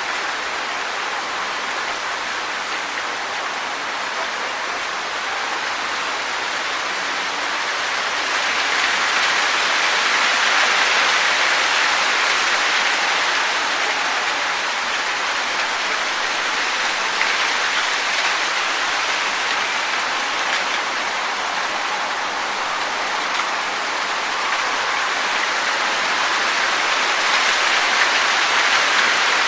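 Wind blowing through trees, leaves rustling in a steady hiss that swells in gusts about a third of the way in and again near the end.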